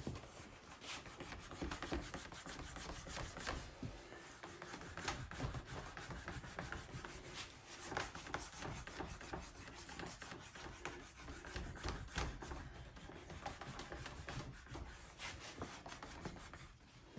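Saddle seat leather being rubbed down by hand onto the saddle's glued seat: a continuous rough rubbing with scattered light clicks and knocks, easing off near the end.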